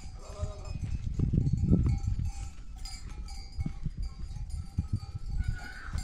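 Sheep and goats bleating, with faint clinks of livestock bells, over low rumbling that comes and goes and is loudest about a second in.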